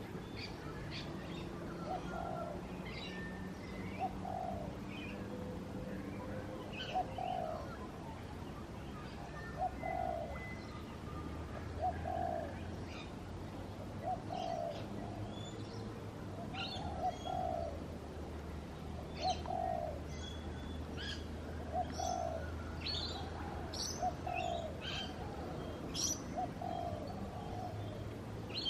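Early-morning birdsong from several garden birds. One bird repeats a low cooing note about every second and a half, while others add short, high chirps and whistles, more of them in the second half.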